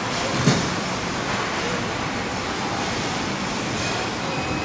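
Steady machinery noise of a car assembly plant floor, heard from an electric cart moving along an aisle, with one short knock about half a second in.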